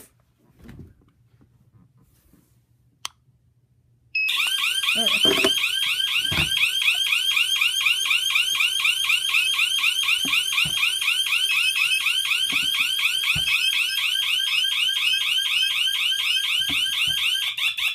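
Small electronic siren of a wireless home alarm system sounding in panic mode: a loud, rapidly repeating sweep in pitch. It starts abruptly about four seconds in and stops suddenly near the end.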